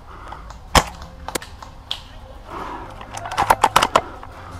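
Airsoft guns firing: one sharp shot, a couple of lighter snaps, then a quick string of about six shots near the end.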